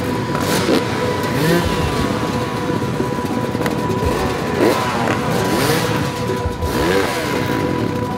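Many dirt bike engines running and revving together, their pitches rising and falling over one another.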